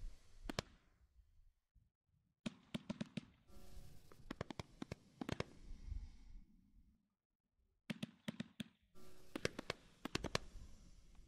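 A 500-gram consumer fireworks cake firing in rounds: each round is a hiss of shots going up with a quick string of sharp cracks. There are short near-silent pauses between rounds, the first just after the start and another about seven seconds in.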